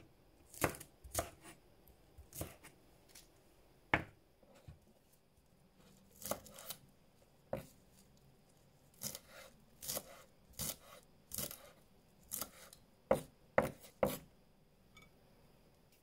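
Kitchen knife chopping chilli and coriander on a wooden cutting board: irregular sharp strokes, often in quick clusters of two or three, stopping shortly before the end.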